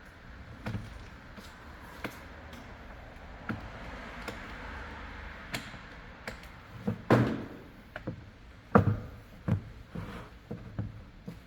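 Scattered clicks and knocks of plastic and metal parts being handled and worked loose while taking apart a Stihl string trimmer's shaft housing. The knocks come sparse at first, then louder and more frequent from about seven seconds in.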